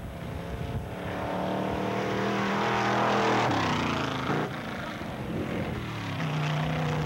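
Engine of a drag vehicle running hard down a dirt strip, getting louder to a peak about three seconds in, then falling in pitch and settling into a lower steady note near the end.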